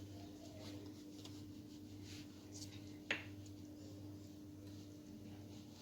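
Faint soft strokes of a pastry brush spreading egg-yolk and caramel glaze over biscuit dough, with a single light click about three seconds in, over a steady low hum.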